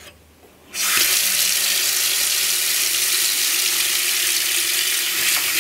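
Faucet turned on about a second in, its stream of water running steadily into a stainless steel sink basin with the drain closed, the sink filling.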